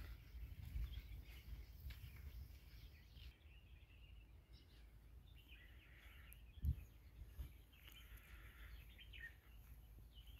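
Faint outdoor ambience: a low wind rumble on the microphone with faint bird chirps. There is one short thump about two-thirds of the way through.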